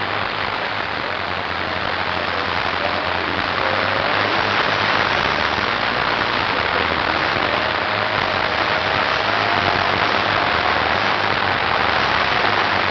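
Steady, even rushing hiss like heavy rain, growing a little louder over the first few seconds, with a faint wavering tone underneath.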